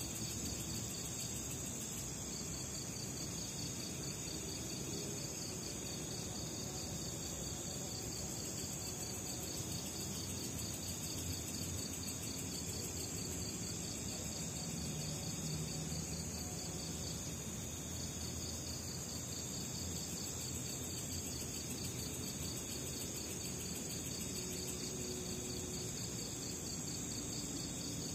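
Night chorus of crickets and other insects: a steady high-pitched buzz with a rapidly pulsing trill just below it.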